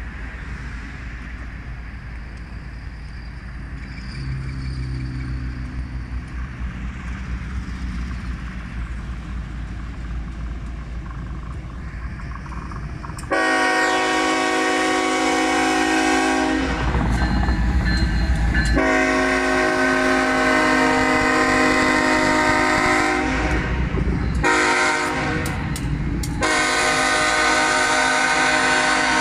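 Diesel freight locomotives rumbling closer, then the lead locomotive's air horn sounding a loud chord about halfway through: two long blasts, a short one and another long one, the standard crossing signal. The locomotives' heavy low rumble fills the gaps between blasts.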